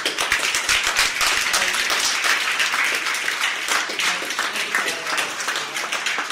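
Small audience applauding steadily with dense clapping, easing slightly near the end.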